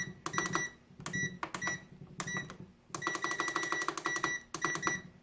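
Cabela's 12-tray food dehydrator's digital control panel beeping rapidly in short runs as its timer is set, each run a quick string of high beeps.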